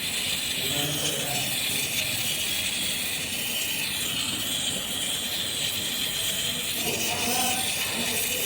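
Brazing torch flame hissing steadily while heating copper pipe.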